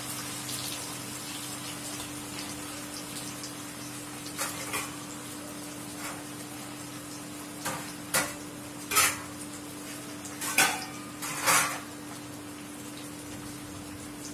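Marinated fish pieces deep-frying in oil in an iron kadai, a steady bubbling sizzle, under a steady hum from the induction cooktop. Several short, sharp crackles stand out, a pair about four seconds in and a run of louder ones between eight and twelve seconds in.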